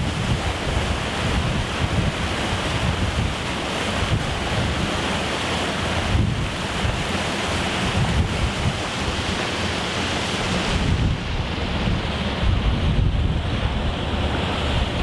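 Wind buffeting the microphone over the steady rush of a moving boat's churning wake. The low buffeting grows heavier near the end.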